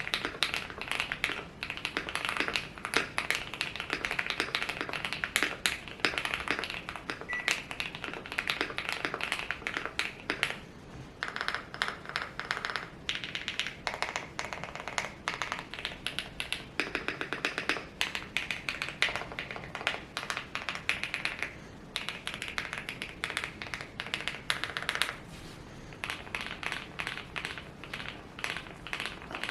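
Fast typing on a mechanical keyboard with a 'creamy' sound: a dense, rapid stream of key clacks with a few short pauses.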